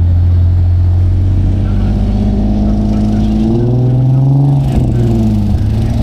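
Car engine pulling up through the revs, its pitch climbing for a couple of seconds, then falling away suddenly at about five seconds in and settling to a steady run.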